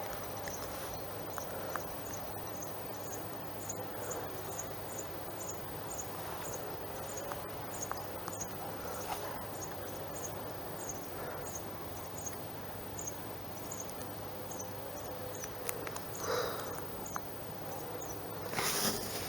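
Cricket-like chirping: short high chirps repeating about twice a second over a steady hiss and low hum, with a brief louder rustle near the end.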